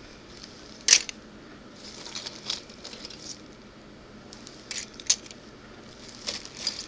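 Loose plastic model-kit parts and sprue clicking and clattering against each other as they are picked through by hand, a few sharp separate clicks with the loudest about a second in.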